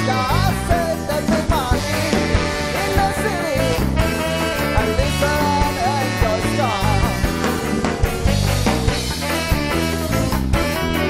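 Ska band playing live: a male lead vocal over electric guitars, bass and drums. The singing stops about two-thirds of the way in and the band plays on.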